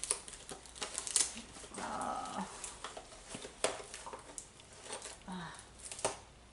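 A boxed water flosser and its plastic parts being handled and checked: scattered light clicks and knocks of plastic, with a short vocal sound about two seconds in.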